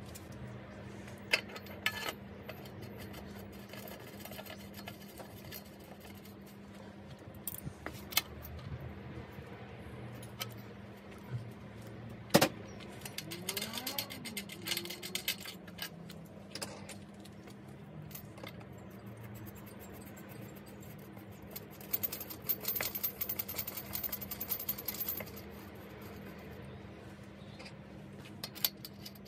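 Metal clicks and clinks as a cartridge bottom bracket is fitted and threaded by hand into a bicycle frame's bottom bracket shell, with one sharp click about twelve seconds in and spells of quick ticking in the middle and again later on.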